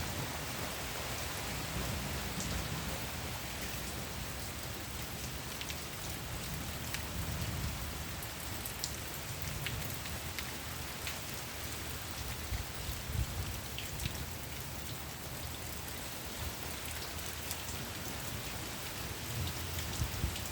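Steady rain falling, an even hiss with scattered sharp drop ticks, over an uneven low rumble.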